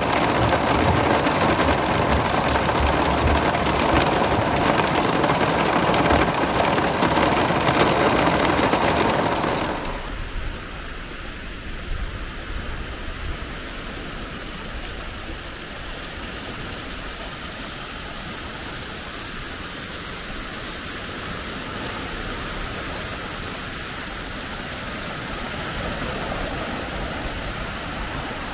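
Heavy rain pelting the windscreen and body of a camper van, heard from inside: a loud, dense patter of drops. About ten seconds in it cuts to a much quieter, steady outdoor hiss.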